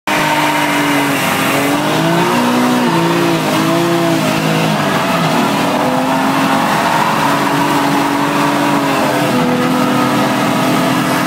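Drift car's engine heard from inside the cabin under hard driving. The revs step up and down over the first few seconds, then hold at a steady pitch.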